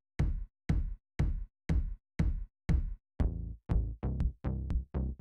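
Electronic backing music of short, chopped stabs about two a second, quickening to a denser run of pulses about three seconds in.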